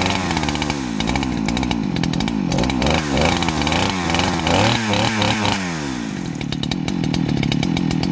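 Neo-Tec two-stroke chainsaw running just after being started from a flooded state, its throttle blipped over and over so the engine note rises and falls. About six seconds in it settles to a steady idle.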